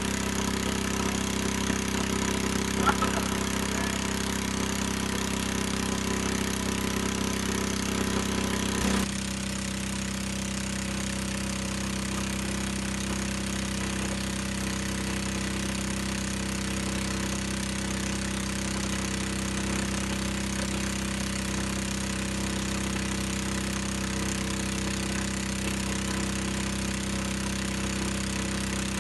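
Small engine driving the drilling-mud pump runs steadily throughout, with a short sharp sound about three seconds in. Just before nine seconds the sound changes abruptly, and the engine carries on at an even, slightly lower level.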